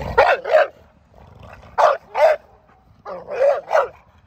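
A pit bull-type dog barking in play, in three quick runs of two or three barks with short pauses between.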